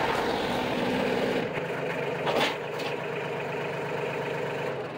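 LS compact tractor's diesel engine running as the tractor drives past, its low rumble fading as it moves away, with a short sharp noise about two and a half seconds in.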